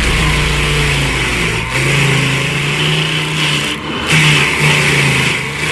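A machine's engine running under load, its low tone shifting up and down a few times, with a brief dip and pick-up near the end.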